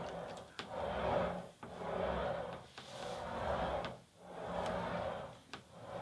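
Wheels of a JBL PartyBox 310 speaker rolling back and forth on a wooden tabletop: a rumbling swell about once a second, five times, with small knocks where it changes direction.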